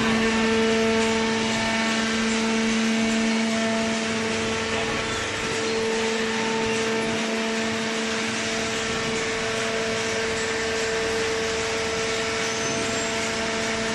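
Industrial cardboard baler running, a steady machine hum of constant pitch over an even mechanical noise.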